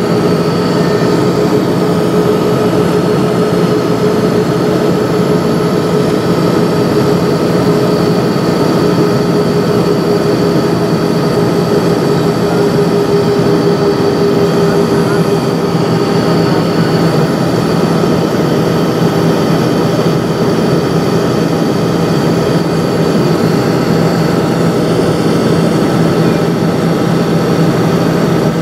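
Airbus A320 jet engines and airflow heard from inside the passenger cabin in flight: a loud, steady drone with a few constant hums in it.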